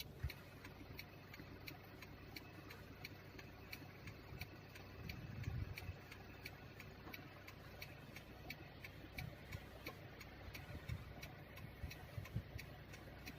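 A car's indicator relay clicking steadily inside the cabin, about three clicks a second, over a faint low engine rumble.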